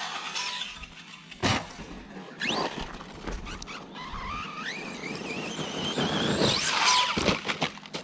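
Arrma Outcast 4S RC truck's electric motor whining, its pitch rising and falling with the throttle, over tyre noise in loose dirt. A few sharp knocks come as the truck hits the ground.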